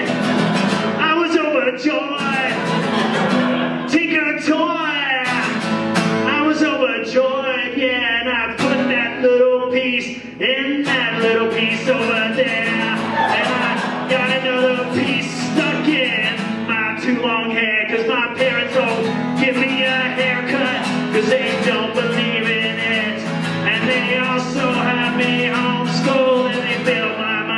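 A man singing a punk-style song over a strummed acoustic guitar.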